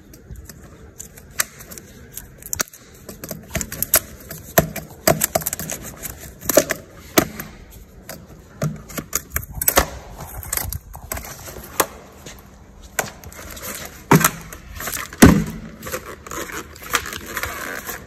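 Coiled plastic garden hose being handled and its cable tie cut: a run of irregular plastic clicks, crackles and knocks, with two louder knocks in the last third.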